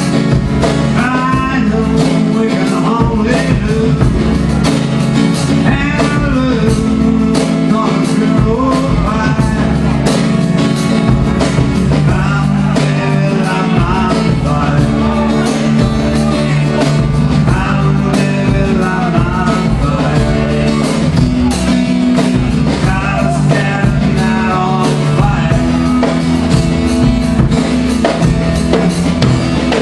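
Live acoustic guitar and drums playing a steady blues-rock groove.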